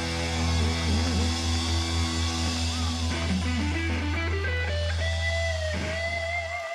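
Live rock band: an electric guitar plays a lead line with bends over a deep held low note, then settles into a long final note with vibrato. The low note cuts off just before the end.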